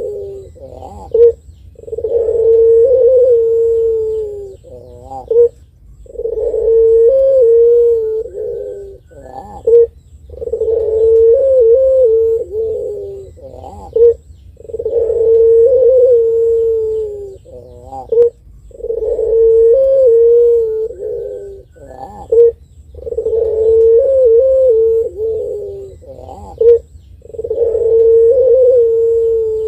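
Caged puter pelung, a long-voiced strain of domestic collared (Barbary) dove, cooing over and over. Each phrase is a short sharp note and then a long drawn-out coo of about two and a half seconds, repeated about every four seconds, seven times.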